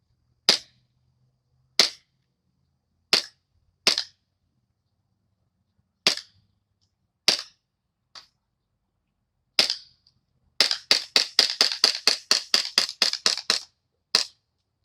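CO2 airsoft pistol firing: single sharp shots a second or two apart, then a rapid string of about fifteen shots at some five a second, as fast as the trigger is pulled, and two last shots near the end as the 24-round magazine runs empty.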